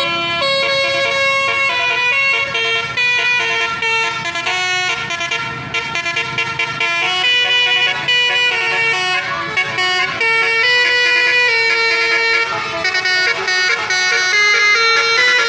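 Buses' basuri telolet horns, multi-tone air horns, playing a melody: loud held notes that step from pitch to pitch, several tones sounding together.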